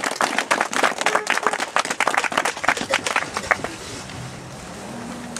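A small crowd applauding, with dense hand claps that thin out and die away about three and a half seconds in, leaving a quieter murmur.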